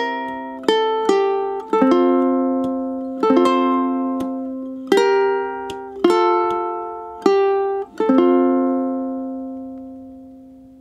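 Solo ukulele played fingerstyle: plucked notes and chords about a second apart, closing on a final F major chord about eight seconds in that rings out and slowly fades.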